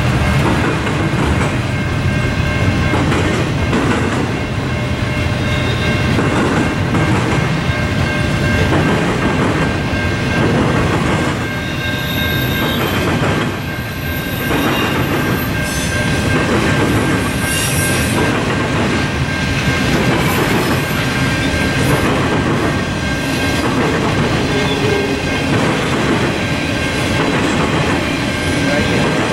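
Freight cars rolling past, their wheels clacking rhythmically over rail joints about once a second over a steady rumble, with a faint steady high tone running underneath.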